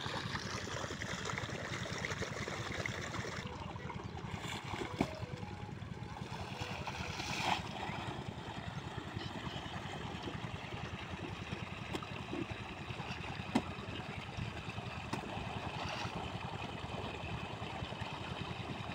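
Water gushing steadily from a flat irrigation hose fed by a small diesel water-pump set, the engine running steadily underneath. A few light knocks come through, about a third of the way in and again after the middle.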